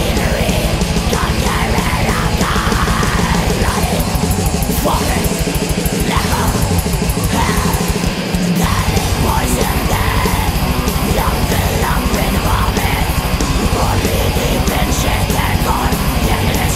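Loud black metal played by a band: distorted guitars and fast, pounding drums with harsh screamed vocals. The music drops out briefly about halfway through, then starts again.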